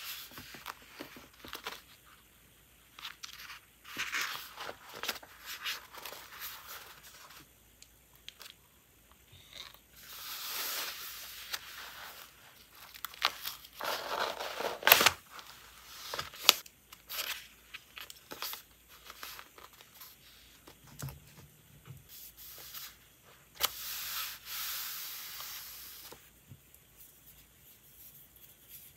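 Paper and leather handling noises from a leather traveler's notebook: kraft-paper pages rustling and being turned, with small taps and scrapes. The sounds come in irregular bursts, with two longer stretches of rustling and short pauses between.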